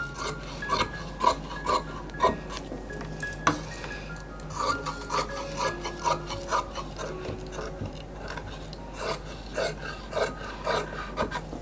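Large tailor's shears cutting through cotton-like fabric on a table: a long run of crisp snips as the blades close, one to two a second.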